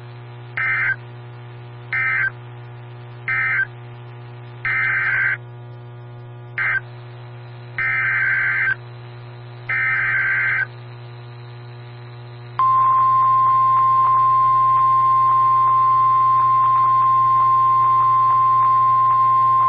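NOAA Weather Radio alert signalling between two warnings. Seven short bursts of SAME digital data tones warble over about ten seconds, then the steady 1050 Hz warning alarm tone starts about 12.5 seconds in and holds, over a constant low hum from the receiver.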